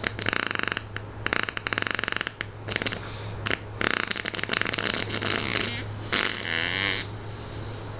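A long, drawn-out fart fluttering rapidly, breaking off briefly a few times and starting again. Near the end it turns into a higher, wavering squeak.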